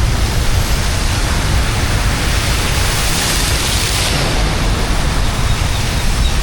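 Floodwater rushing and splashing in a steady, loud wash with a deep rumble underneath. A brighter hiss swells about three seconds in and fades again a second later.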